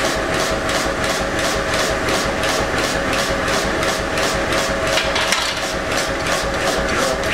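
Forging power hammer running idle, with an even rhythmic beat of about four a second over a steady motor hum.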